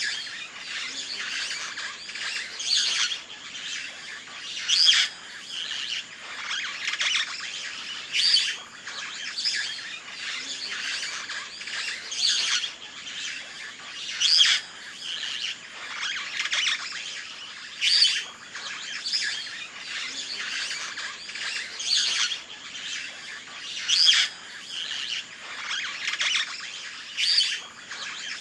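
Birdsong: a dense chorus of small birds chirping and twittering, with a louder, sharper call breaking through every few seconds.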